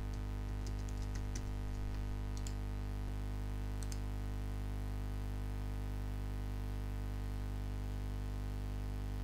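Computer keyboard keys clicking faintly a few times in the first seconds as an e-mail address is typed in, over a steady low electrical hum made of many even tones.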